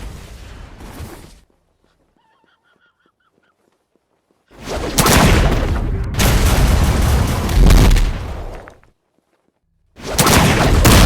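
Rushing water running past a rock, heard close with a heavy low rumble and crackle, in three loud stretches that start and cut off abruptly with near silence between them. A faint repeated chirping is heard in the quiet gap near the start.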